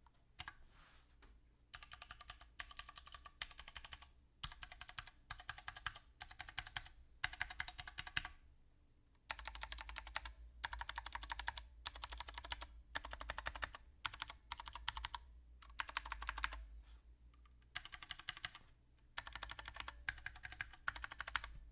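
Typing on a Mistel MD770BT mechanical keyboard with Cherry MX Brown switches: quick runs of key clacks about half a second to a second long, with short pauses between them.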